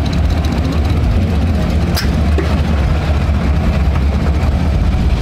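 A large vehicle engine idling with a steady deep rumble. A single sharp click comes about two seconds in.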